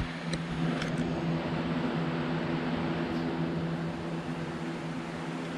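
Steady machine hum with a hiss, like a fan or air conditioner running, with a couple of faint clicks in the first second.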